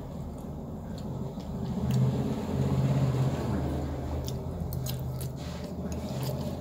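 A man eating fried noodles with a fork and spoon: chewing, with a few light clicks of cutlery on the plate a little past the middle. Under it runs a low rumble that swells a couple of seconds in and then eases.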